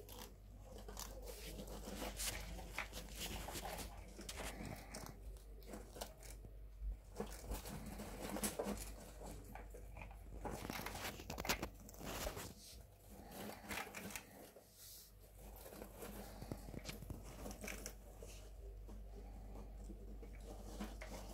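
Pet rats gnawing and chewing food and rustling about in wood-shaving bedding: irregular small crunches and clicks.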